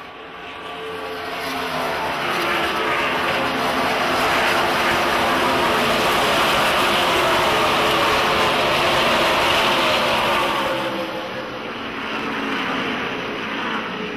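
A pack of NASCAR stock cars' V8 engines passing at speed on the track. The sound builds over the first two seconds, stays loud with the engine pitches sliding as the cars go by, then fades about ten seconds in, with a smaller swell from a following car near the end.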